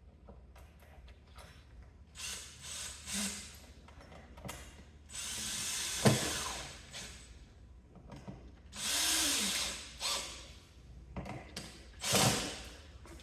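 Screws being driven into a door jamb to fit a latch strike plate stacked with shim spacers: several short bursts of mechanical ratcheting and grinding, with a sharp click about six seconds in.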